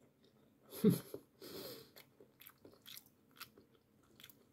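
A person biting and chewing a garlic clove: soft, irregular wet chewing clicks, with a short vocal sound about a second in.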